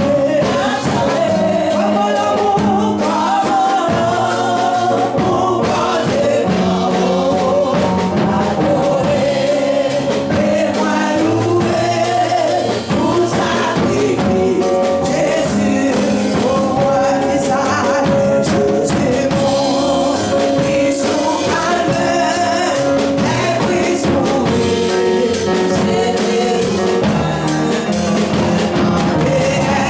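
Gospel music: voices singing over a band with a bass line and a steady beat.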